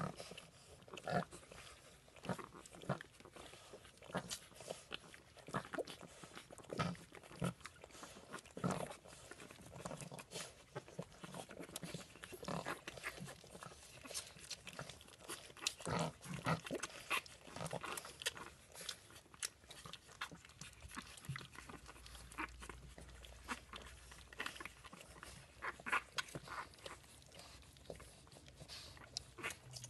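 A litter of 13-day-old Boston terrier puppies nursing from their mother: irregular wet suckling and smacking sounds, many small clicks at an uneven pace.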